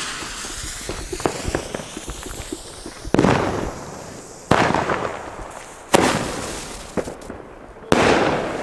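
Consumer firework bomb tube (Lesli Bada Bang Bada Boom): the lit fuse hisses and crackles for about three seconds, then the tube fires four loud shots about one and a half seconds apart, each bang trailing off over about a second.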